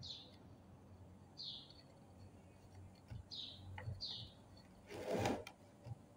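A small bird chirping, four short high chirps spread out. About five seconds in comes a brief louder burst of noise, with a few faint knocks before it.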